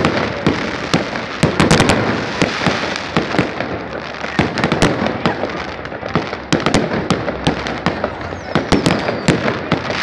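Aerial fireworks bursting in rapid succession: a dense, unbroken barrage of sharp bangs and crackles from many shells at once.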